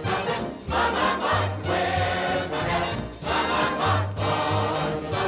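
1940s swing band number with voices singing, a group of singers joining the lead.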